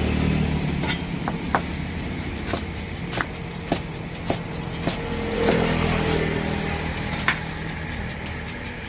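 Low rumble of a motor vehicle's engine, loudest at the start and fading. Over it come a series of sharp knocks at uneven intervals, roughly every half second.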